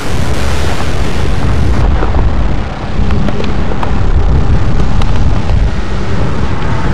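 Molten lava rumbling in a loud, deep continuous roar, with a few sharp crackles and pops a couple of seconds in.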